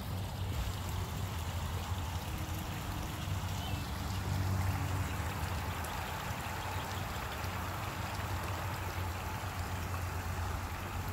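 Steady running and trickling water from a garden pond, over a low steady rumble.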